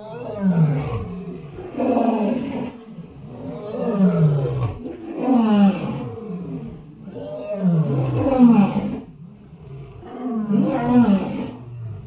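Elephant roaring: a run of deep calls about one every two seconds, each falling in pitch.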